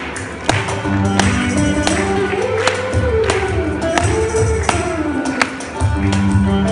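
Saraswati veena playing a melody in long sliding pitch bends, over a held low note. It is accompanied by mridangam and ghatam strokes about every half second to a second.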